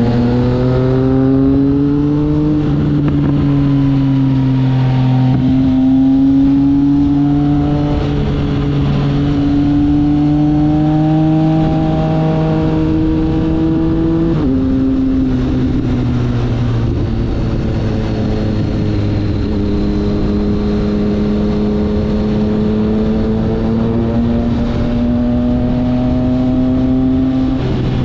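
Triumph Speed Triple R's 1050 cc inline-three engine running under way on the road, its pitch climbing at first, then holding fairly steady with gentle rises and a sudden drop about halfway through. Wind noise runs underneath.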